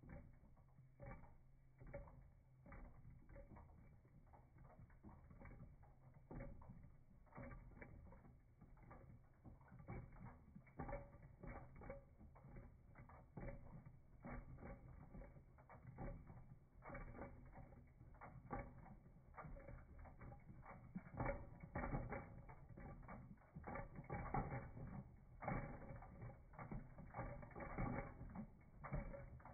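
Hand-cranked plastic toy earthquake shake table running: its crank mechanism clicks and rattles rapidly as the platform shakes a tower of plastic linking cubes. It gets louder from about halfway through.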